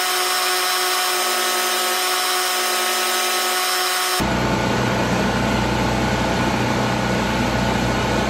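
2x72 belt grinder running steadily for about four seconds. Then an abrupt cut to a different steady machine hum with a low drone.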